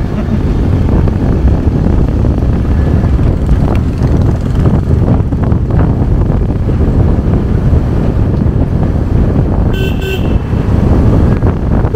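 Loud, steady wind and traffic noise from riding a motorbike through city traffic, with a vehicle horn honking briefly about ten seconds in.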